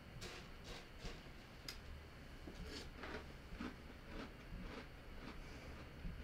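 A person chewing a mouthful of Cheerios: a run of faint crunches, roughly two a second.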